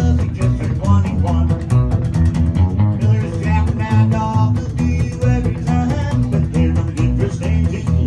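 Live band music: a plucked upright double bass and an electric guitar playing together, the bass giving a steady low pulse under the guitar's melody.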